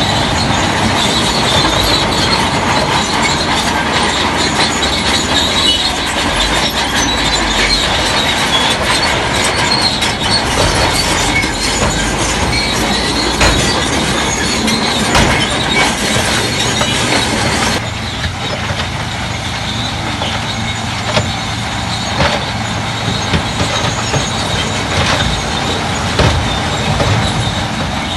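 Crawler bulldozer working: steel tracks clanking and squealing over a steady diesel engine. The sound thins abruptly about two-thirds of the way through.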